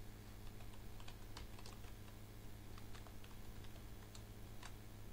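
Computer keyboard being typed on: faint, irregular key clicks over a steady low hum.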